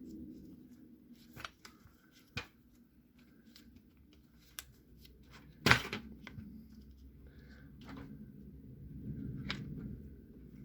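Parts of a DeWalt DCH273 hammer drill's housing being handled and worked into place by hand: scattered light clicks and knocks over a low rustle, with one sharper knock a little past halfway.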